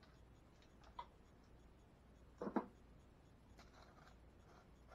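Faint clicks and light handling noise of hands fitting conduit parts at an inverter, with one brief knock about two and a half seconds in; otherwise near silence.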